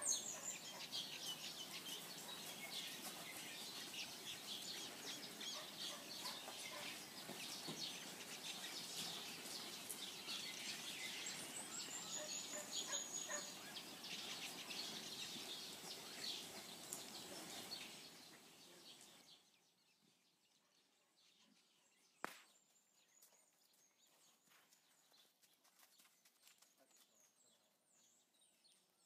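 Birds chirping over outdoor background noise, with many small clicks and rustles. A little past halfway, the sound drops suddenly to near silence, leaving faint high chirps and a single sharp click.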